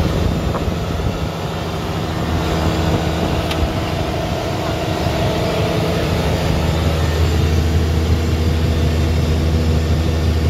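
A fishing boat's engine running steadily with a low, even hum, getting a little louder in the second half.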